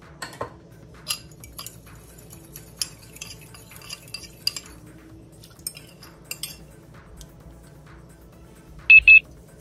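Metal fork whisking oil dressing in a ceramic bowl: a quick, irregular series of light clinks against the bowl. Near the end come two loud ringing clinks of a small glass bowl, the loudest sounds, over faint background music.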